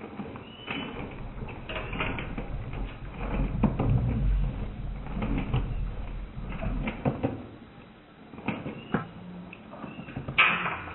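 A golden retriever eating dry kibble from a stainless steel bowl: irregular crunching and clinks of food and muzzle against the metal bowl. A low rumble runs through the middle, and one sharp, loud clink comes near the end.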